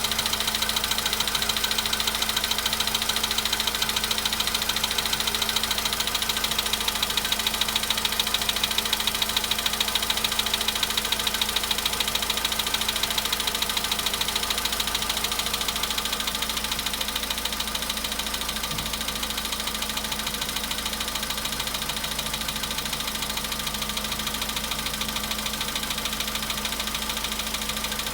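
Volkswagen Polo Sedan's 1.6-litre four-cylinder petrol engine idling steadily after a cold start, with a fast, even knocking from the engine at about 93,000 km that the owner finds strange.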